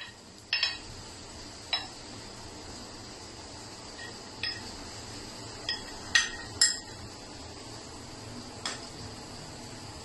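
A metal spoon and a small nonstick frying pan clinking against a porcelain bowl while a fried egg is scraped out of the pan: about seven short, ringing clinks, the two loudest close together just past the middle.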